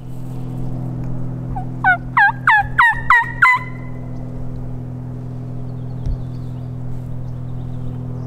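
Hunter's mouth call giving a run of six loud hen turkey yelps through a cupped hand, each note breaking sharply from high to low, about three a second. It is a turkey call used to draw a gobbler.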